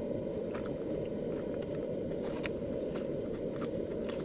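Soft, scattered ticks of someone chewing a rice ball, over a steady low rumble.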